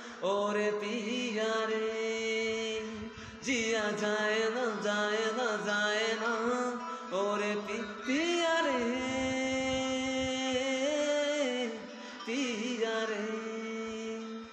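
A man singing a Hindi film song in long, wordless, ornamented held notes over a steady drone accompaniment, with brief pauses for breath.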